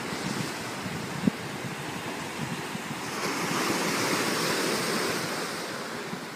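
Ocean surf breaking and washing up a small sandy cove among rocks, swelling for a couple of seconds in the middle, with wind buffeting the microphone. A brief thump about a second in.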